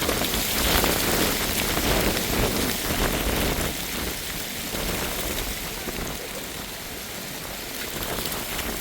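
Heavy rain falling in a dense patter of drops, a little louder over the first three seconds and then easing slightly.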